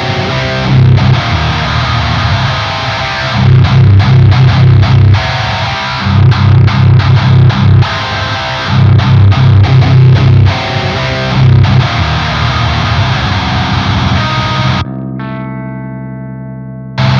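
Electric guitar through the Lichtlaerm Audio Medusa, an HM-2-style "chainsaw" distortion pedal, playing a heavy high-gain metal riff of chugging low notes in short stop-start phrases. Near the end it lets a single chord ring out and slowly fade.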